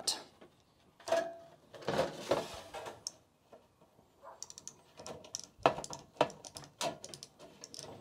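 Red-handled offset aviation snips cutting sheet metal: an irregular series of short crunching bites and clicks as the blades close and the spring opens them again between strokes.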